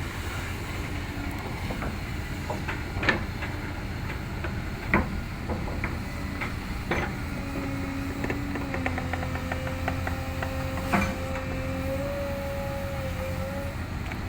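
Backhoe's diesel engine running steadily as it digs and loads, with several sharp metallic clanks from the bucket and boom linkage. A steady whine joins about halfway through.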